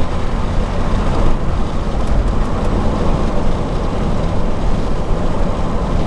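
Chevrolet Impala SS with its LT1 5.7-litre V8, driving along: a steady low rumble of engine and road noise.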